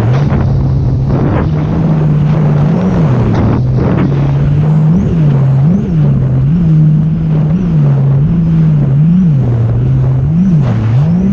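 Sea-Doo RXP-X 300 personal watercraft engine running at speed, its revs jumping up and dropping back again and again, over a steady rush of water and wind.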